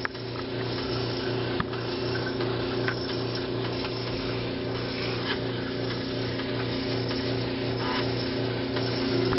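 Steady electric hum with a rushing noise over it and a few faint light ticks.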